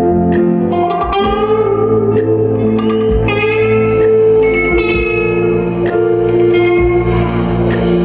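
Instrumental music: an electric guitar, a PRS SE 245, plays a picked melody over sustained keyboard chords and a steady beat with hi-hat ticks.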